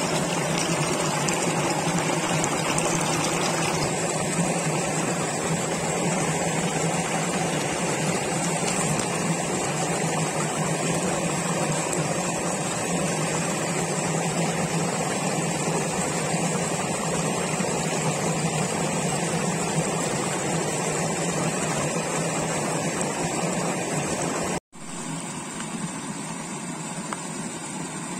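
Steady rushing noise that drops out for an instant about 25 seconds in and comes back a little quieter.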